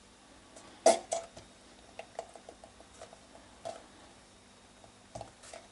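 Light clicks and taps from handling a squeeze tube of tomato sauce over a small glass cup, with one sharper click about a second in and scattered smaller ticks after it.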